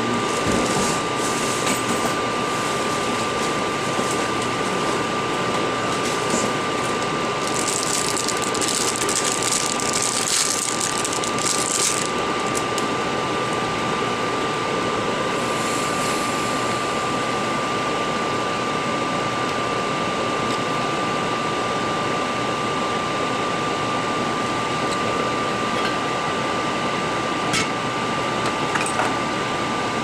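Steady fan-like machine noise with a constant high whine, and a stretch of louder hiss from about seven to twelve seconds in.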